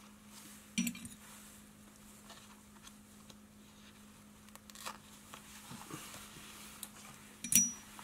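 Two sharp metallic clinks, as of a small tool set down on a hard bench: one about a second in and a louder one near the end that rings briefly, with faint handling ticks between them over a steady low hum.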